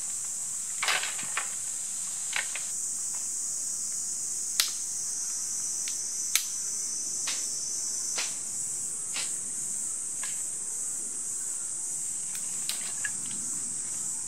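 A steady, high-pitched insect chorus, with a dozen or so sharp wooden clacks scattered through it as dry kindling sticks are handled and laid down on a pile.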